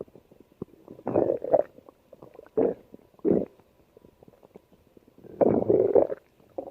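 Stomach growling: a run of short, irregular gurgles with faint pops between them, and a longer rumbling gurgle near the end.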